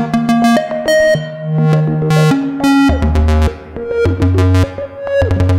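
Make Noise Eurorack modular synthesizer playing a sequenced patch: a stepping bass line under short higher notes, with notes repeating in quick ratchets driven by MATHS function generators. Between about three and five seconds in, several notes bend in pitch.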